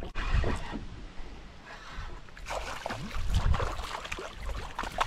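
A small hooked fish thrashing and splashing at the surface beside a kayak, in uneven bursts, over water sloshing and a low rumble of wind on the microphone.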